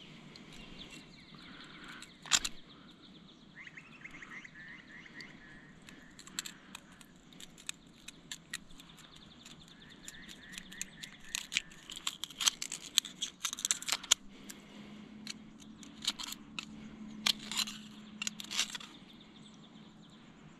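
A knife blade scraping and clicking against an oyster shell as the oyster is prised open by hand, in a series of sharp clicks, one loud one a couple of seconds in and many more crowded into the second half.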